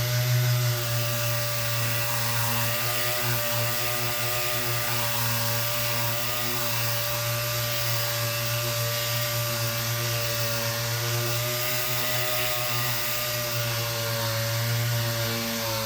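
Electric power sander running steadily, sanding down wood filler, its motor pitch wavering slightly as pressure on it changes.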